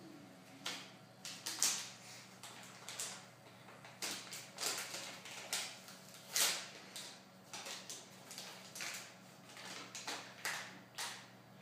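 Paper sterile packet being handled and peeled open: crinkling and rustling in short, irregular bursts.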